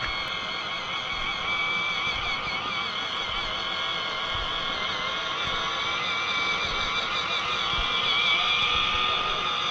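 Small electric motor and gearbox of an MN D99S remote-control Defender whining steadily as the truck drives, the pitch wavering up and down with the throttle and getting a little louder near the end.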